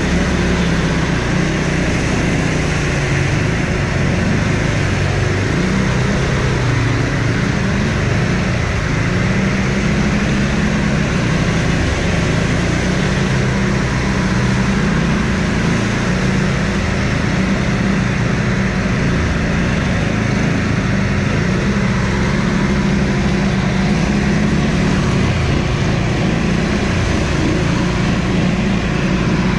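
Quad bike engine running as it is ridden off-road, its pitch rising and falling with the throttle over a steady rush of noise.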